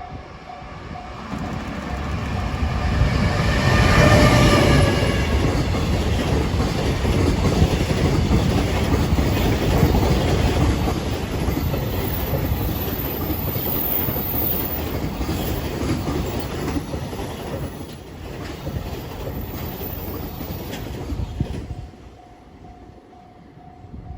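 Freight train hauled by an EF510 electric locomotive passing at speed, its wheels clattering over the rail joints for about twenty seconds, loudest as the locomotive goes by about four seconds in and dropping away near the end. The level-crossing warning bell is heard ringing again as the train clears.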